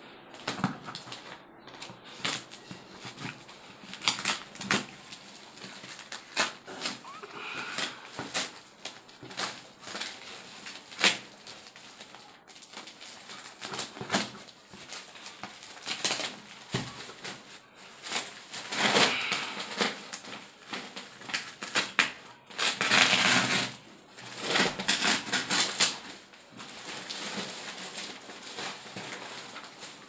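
Parcel packaging being cut and opened by hand: a knife working through plastic and cardboard, with crackling, scraping and many small clicks, and several longer bursts of rustling in the second half.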